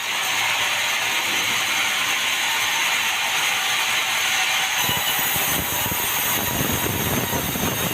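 Sawmill saw running through meranti timber, a steady loud mechanical noise. About five seconds in it shifts, with more low rumble coming in.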